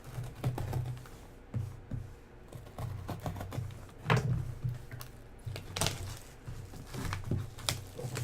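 Hands opening a sealed box of trading cards: irregular clicks, taps and scrapes of cardboard and packaging being handled, with a few louder knocks.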